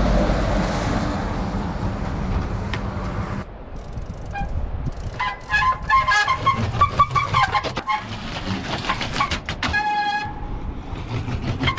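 Wind and tyre rumble on a handlebar-mounted camera as a bicycle rolls over gravel. About three and a half seconds in, this gives way to a trials bike on wooden steps: short, repeated brake squeals and knocks of the tyres on the treads, with one longer squeal near the end.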